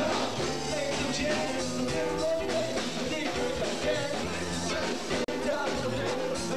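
Live band playing: a singer into a microphone over electric guitar and a drum kit. The sound cuts out for an instant a little over five seconds in.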